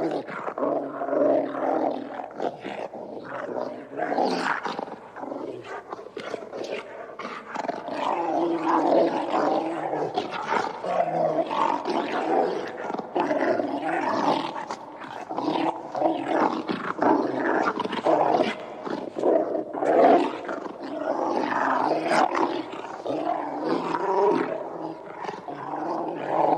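Dog growling and snarling aggressively, a continuous rough growl that swells and eases in short pulses.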